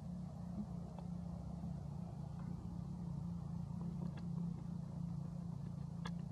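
Steady low motor hum, like an engine idling, with a few faint clicks, the clearest near the end.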